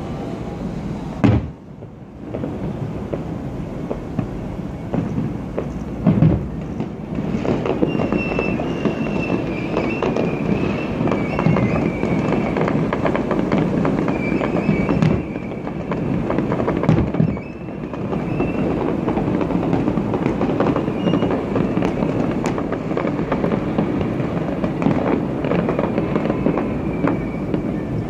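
A fireworks display: a dense, continuous run of bangs and crackling, with heavier booms about a second in, around six seconds in and near seventeen seconds. A thin, wavering high whistle runs over it from about eight seconds in.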